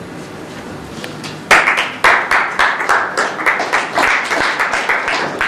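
Audience applauding, starting suddenly about a second and a half in over a steady low room hum.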